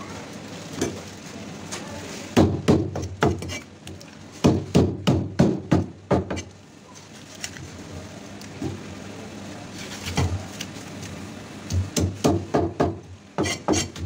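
A large knife scaling a parrotfish on a wooden chopping block: runs of quick sharp knocks, about four a second, as the blade strikes the fish and the block, with quieter scraping between the runs.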